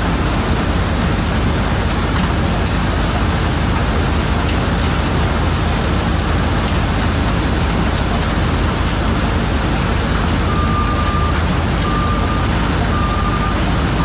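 White 1210 corn sheller and a skid steer running steadily together as a dense, even machine noise. Near the end the skid steer's backup alarm beeps four times, about once a second, as it reverses.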